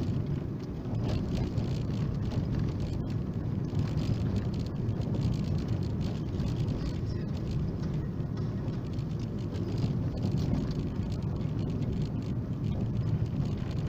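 Steady road noise inside a car's cabin: tyres rolling over an icy, snow-packed road and the engine running as the car coasts downhill in second gear on engine braking.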